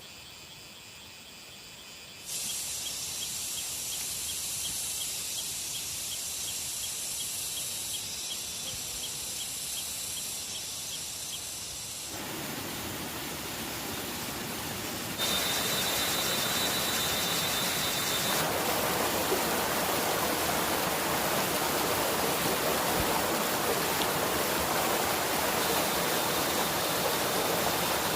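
Steady rushing outdoor noise that jumps in level abruptly a few times. Faint high ticking is heard in the first part and a thin high steady tone in the middle.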